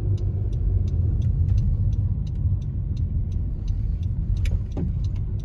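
Car cabin noise while driving: a steady low rumble of road and engine, with a faint, quick ticking over it and a brief sharp squeak near the end.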